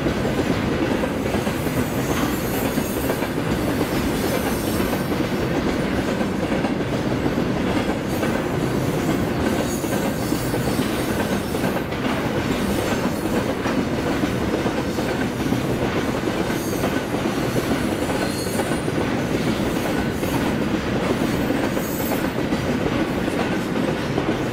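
Container freight train's loaded flatcars rolling past steadily, steel wheels running on the rails.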